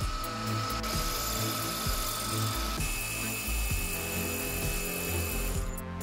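Milling machine spindle with a boring head cutting the piston bore of an anodised aluminium brake caliper: a steady cutting noise with a high whine that jumps to a higher pitch about halfway through, and the noise falls away near the end. Background music with a beat plays underneath.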